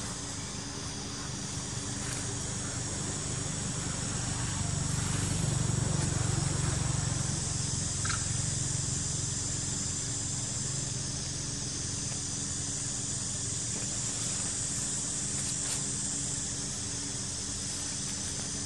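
Outdoor background ambience: a steady high-pitched hiss with a low rumble that swells about four seconds in and fades again by about ten seconds.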